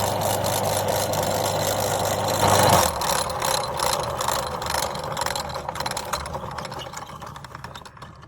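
Electric meat grinder motor running with a steady hum, grinding candy; after a brief louder surge it stops about three seconds in. Scattered clicks and rattles follow, fading out.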